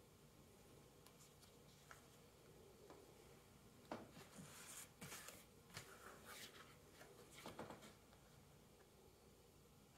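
Faint handling sounds of printed card being slid out of a foam-lined cardboard box: a cluster of short rustles and scrapes from about four to eight seconds in, otherwise near silence.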